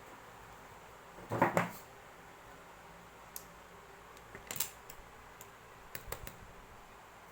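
Scattered clicks and taps of small hard parts being handled while a hot glue gun is worked on. There is a louder clatter about a second and a half in, then single clicks and short clusters of clicks.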